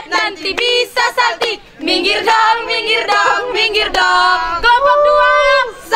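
A group of teenage students singing their group cheer song together, with a note held steady about five seconds in.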